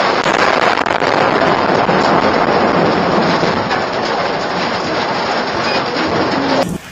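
Thunderstorm noise: a loud, steady rushing roar that holds for several seconds and then cuts off suddenly near the end.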